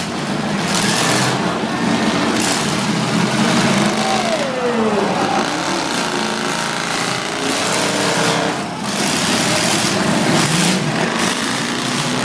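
Demolition derby cars' engines running and revving hard, with repeated surges of noise and one engine note falling in pitch about four seconds in.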